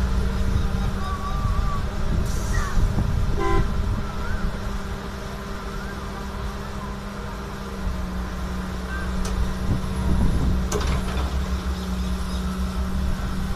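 Diesel excavator engine running steadily at work, with one short horn toot about three and a half seconds in.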